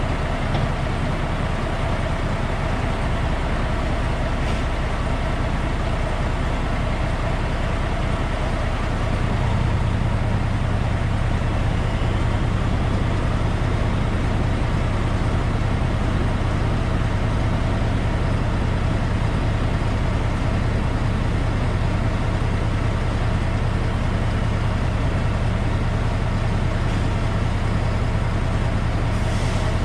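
Diesel log truck engine running steadily with a low rumble, a little louder from about ten seconds in.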